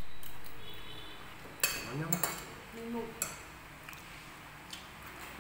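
Metal spoons and forks clinking and scraping on ceramic plates and bowls while eating, with a few sharp clinks about two and three seconds in.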